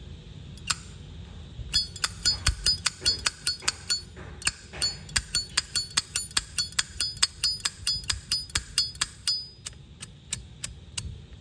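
2005 Zippo lighter's hinged lid flicked open and snapped shut over and over: a rapid run of sharp metallic clicks with a bright chime, about four or five a second, thinning out to a few slower clicks near the end.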